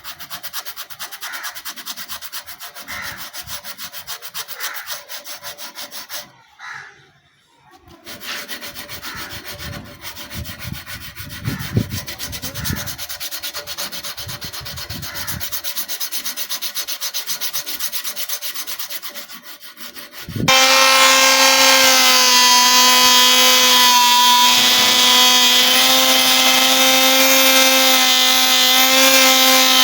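Rapid back-and-forth scrubbing on a rusty steel knife blade, abrasive rubbing that takes off the rust, with a brief pause about a quarter of the way in. About two-thirds of the way through, an electric power tool switches on suddenly and runs at a steady pitch, louder than the scrubbing.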